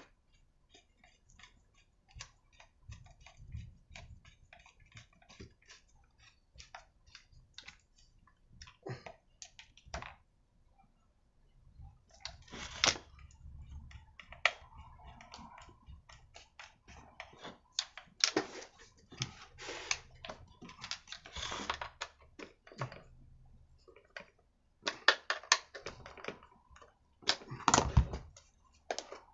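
Scattered clicks and taps of a hex key and small screws against the plastic fuel tank and aluminium housing of a brushcutter engine as it is screwed together. Louder knocks come in a few clusters as the engine is handled and turned over on the workbench.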